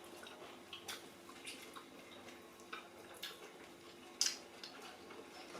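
Faint eating sounds: scattered small clicks and wet smacks of mouths chewing and fingers handling sadza and stew, one sharper click about four seconds in, over a faint steady hum.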